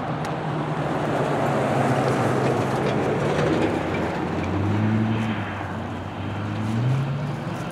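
Approaching GE C44-9W diesel locomotives heard before they come into view: a low engine rumble over a steady hum, its pitch shifting and rising about four seconds in.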